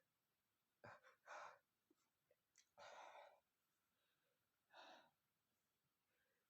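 A man's faint, uneven breaths, a handful of short ones at irregular intervals, in the pause of a sneezing fit brought on by sniffing red pepper.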